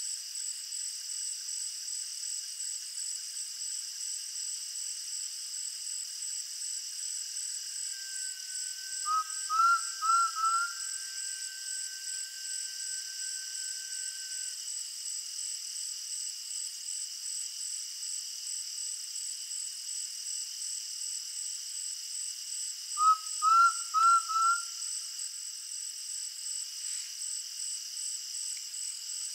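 Dusk insect chorus, a steady high pulsing buzz, over which an undulated tinamou (jaó) calls twice, each call a quick series of four short rising whistles: about nine seconds in, and again later. A faint long steady whistle also sounds for several seconds around the first call.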